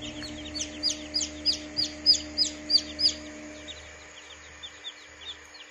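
Newly hatched chicken chicks peeping: a quick run of short, high, falling chirps, about three a second and loudest in the first three seconds, then fewer and fainter ones.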